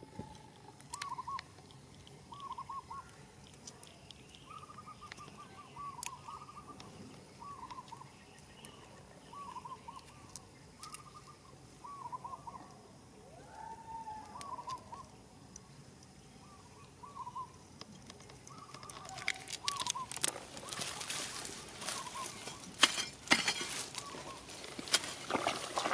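A bird calls over and over, a short note repeating about every second or so. Near the end, loud rustling and crackling with sharp clicks takes over, as dry grass and plant litter are handled close by.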